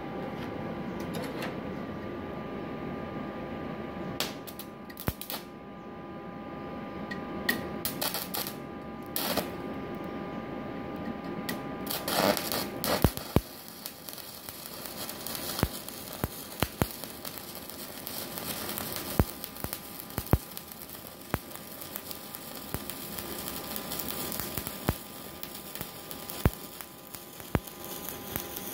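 Stick welding with a 4 mm LB-52U low-hydrogen electrode on a Multipro EG300 IGBT inverter welder set to about 137 amps. From about four seconds in, a few short crackling arc strikes. From about twelve seconds the arc runs on as a steady sizzling crackle with sharp pops, over faint steady tones.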